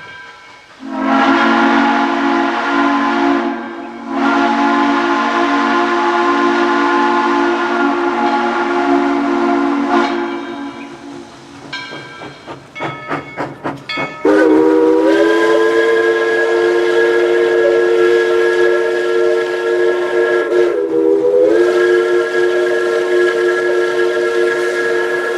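Two different three-chime steam locomotive whistles. First a Virginia and Southwestern three-chime whistle blows two long blasts, the first short and the second about six seconds, fading out near 12 s. After a few short choppy sounds, a Crosby three-chime whistle with a higher chord blows a long blast from about 14 s, broken once briefly near 21 s.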